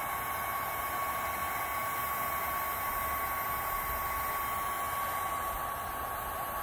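Electric heat gun running steadily, its fan blowing hot air against a plastic kayak hull: an even rush of air with a steady high hum from the motor, unchanged throughout.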